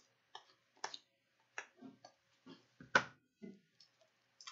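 Hockey trading cards being flipped through by hand: a faint, irregular string of soft card clicks and snaps, with one sharper tap about three seconds in.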